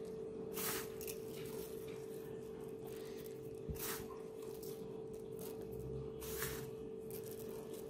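Faint steady hum with three soft, brief rustles about three seconds apart.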